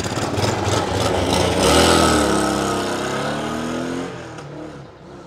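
A car driving past close by: its engine and tyres swell to loudest about two seconds in, then the engine note falls in pitch and fades as it moves away.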